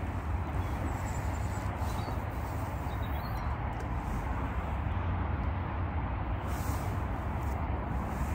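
Steady outdoor background noise with a strong low rumble, and a few faint high chirps about two seconds in.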